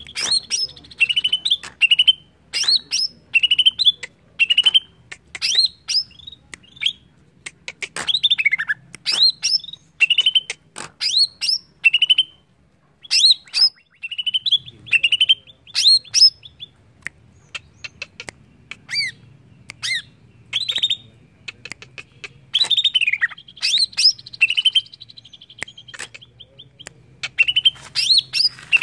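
Greater green leafbird (cucak ijo) singing: a fast, continuous run of sharp, high whistled notes, sweeps and clicks, with a short pause about midway.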